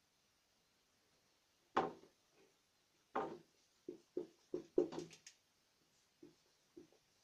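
Dry-erase marker writing on a whiteboard: a series of short strokes and taps, the two longest about two and three seconds in, then a quick run of short strokes between about four and five and a half seconds.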